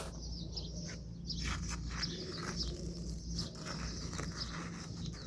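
Faint scraping and tearing noises as old floor covering is pulled off a utility cart by hand, in short irregular bits over a low steady hum.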